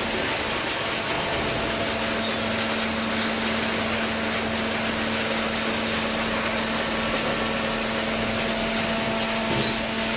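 A machine running steadily, with a steady hum that comes in about a second and a half in.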